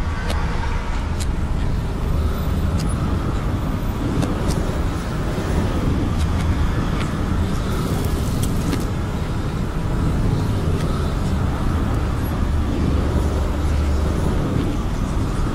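Steady low rumble and hiss of a moving vehicle, with a few faint clicks.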